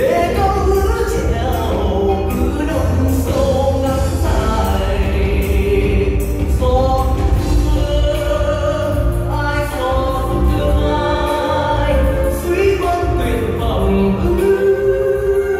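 Live song with band accompaniment and backing voices, a singer's melody carried over a steady bass, heard through the hall's sound system from the audience seats.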